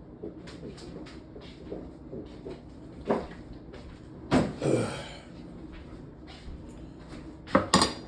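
Kitchen clatter: a few hard knocks and bangs of cookware, dishes or cupboard doors being handled, loudest as a clattering pair around the middle and a sharp double knock near the end.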